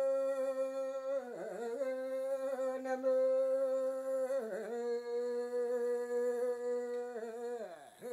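Unaccompanied solo voice chanting a Yami (Tao) sea-fishing song in single-line recitative style, holding one long steady note. The note wavers and dips briefly about a second in and again about four and a half seconds in, then falls away in a long downward glide near the end before taking up the held tone again.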